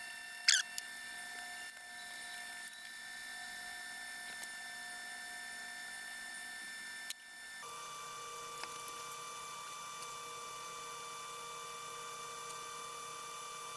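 Steady electrical hum made of several high tones that changes abruptly about seven and a half seconds in, just after a click. A short scrape comes near the start.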